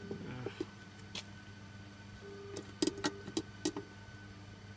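Scattered small clicks and taps from a screwdriver working on the housing of a wall-mounted face-recognition access terminal as its screws are loosened, with a cluster of clicks about three seconds in, over a steady low hum.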